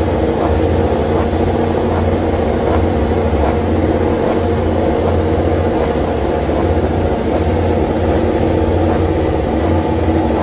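Yamaha YZR-M1 MotoGP bike's inline-four engine idling steadily on its paddock stand: a deep, even rumble with no revving.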